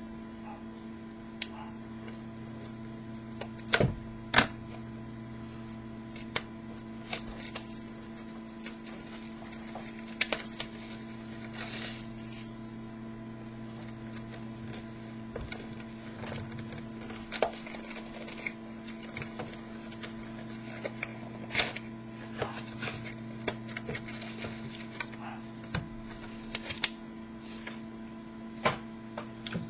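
Scattered clicks, taps and short rustles of a trading-card box and its packs being handled and opened, over a steady electrical hum.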